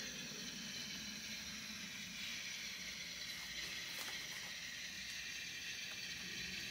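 HO scale model streetcar running along the track: a steady faint hiss and low hum from its small electric motor and wheels on the rails, with a few light clicks.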